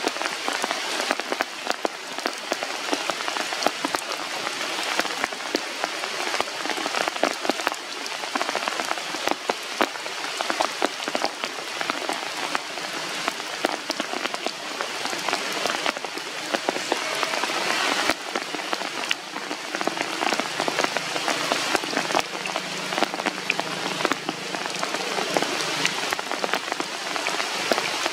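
Steady rain falling on the leaves of the forest canopy, with many separate drop hits heard through the hiss.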